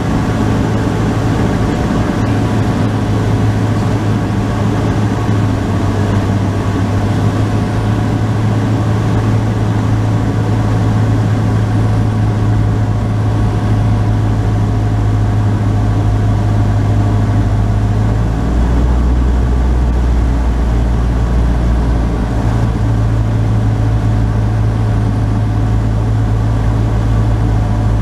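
Cessna 150's four-cylinder engine and propeller droning steadily, heard from inside the cabin. About two-thirds of the way in the drone drops lower in pitch for a few seconds, then returns.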